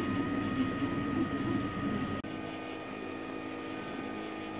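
Ultimaker 3D printer running a print: fans and stepper motors whirring with a few steady tones as the print head moves. About two seconds in the sound cuts to a steadier, more even hum.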